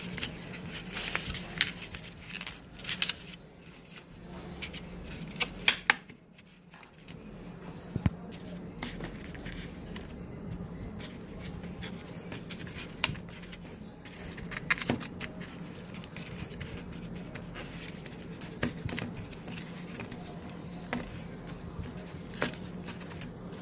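Fingers pressing and smoothing Play-Doh into a plastic mould tray, with scattered taps, clicks and scrapes on the plastic, over a low steady hum.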